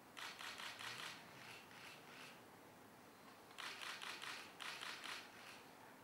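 Camera shutters firing in rapid bursts, several quick clicks at a time, in three runs of about one to two seconds each.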